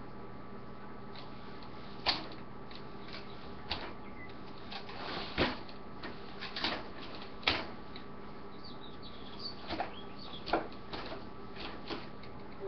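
A person moving through a martial arts form: scattered short thumps and swishes, irregularly spaced about one to two seconds apart, over a steady low electrical hum.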